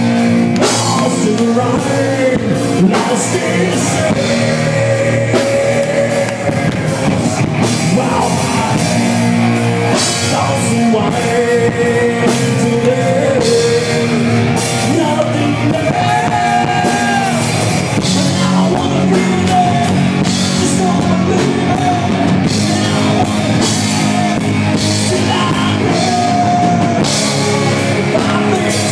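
A rock band playing live: electric guitar, drum kit and a male singer's voice.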